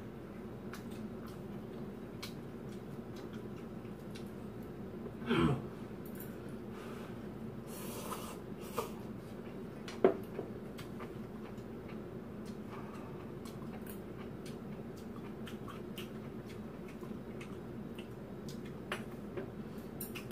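Quiet eating sounds over a steady low hum: scattered small clicks of chopsticks and a metal spoon against bowls and a cooking pan, a short breathy mouth noise about five seconds in, and a sharp clink of the spoon on the pan about ten seconds in.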